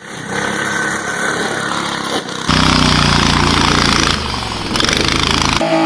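A small gas engine running. Its sound changes abruptly about two and a half seconds in to a louder, steady engine note, and changes abruptly again near the end.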